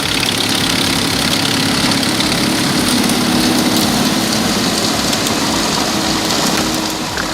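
A wood-processing machine's engine running steadily with a constant noisy din from the machinery, even and unbroken throughout.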